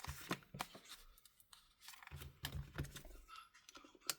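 Plastic pry tool and card working under a tablet's cracked front glass to cut through the adhesive: irregular small clicks, taps and short scrapes, with a few low knocks about halfway through.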